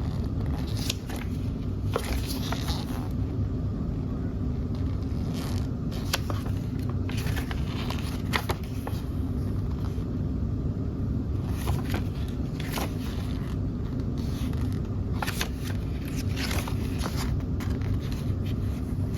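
Paper pages of a quick start guide being handled and turned, giving scattered brief rustles and clicks, over a steady low background rumble.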